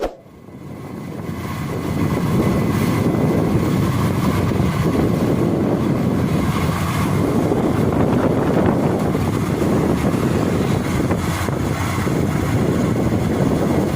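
Rice combine harvester running steadily in the field, a dense low rumble with wind on the microphone; it rises in over the first two seconds, then holds.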